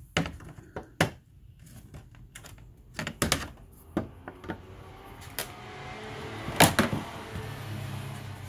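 Sharp plastic clicks and knocks, a screwdriver prying at the plastic retaining clips and tabs of a Nissan Rogue's front grille, scattered irregularly, with the loudest pair about two-thirds of the way in. A low steady hum comes in near the end.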